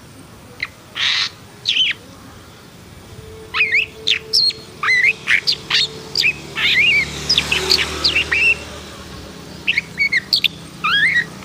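Pentet, the long-tailed shrike, singing in an agitated, fired-up way. It gives a few sharp chirps, then a fast, dense run of short chirps and squeaks. After a brief pause the chirping resumes near the end.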